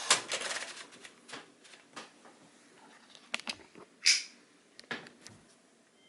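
1965 Smith-Corona Galaxie II portable typewriter: typing keystrokes that slow and stop within the first second, then a few scattered mechanical clicks. A short rasping sound about four seconds in is the loudest event, and a few more clicks follow near five seconds.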